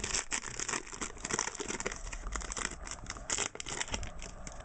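Crinkling and rustling of a Press Pass trading-card pack wrapper and cards being handled: a quick, continuous run of small crackles.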